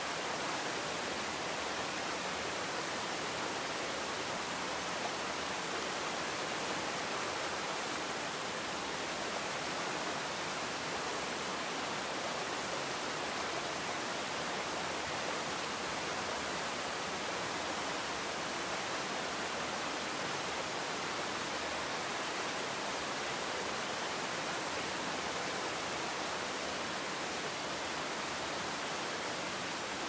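Running water of a waterfall and a shallow rocky stream: a steady, even rush over stones, with no breaks.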